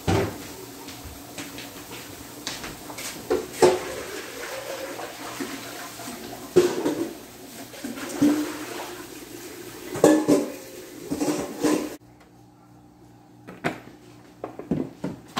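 Kitchen clatter: utensils and dishes knocking and clinking over a steady rush of running tap water at the kitchen sink, which shuts off about twelve seconds in. A few lighter knocks follow near the end.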